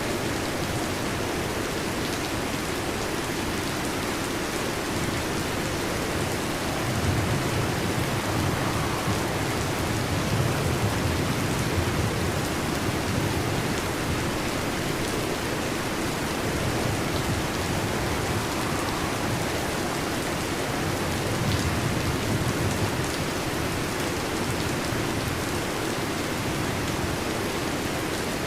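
Steady heavy rain, with low thunder rumbling in the background, swelling about seven seconds in and again around twenty-one seconds.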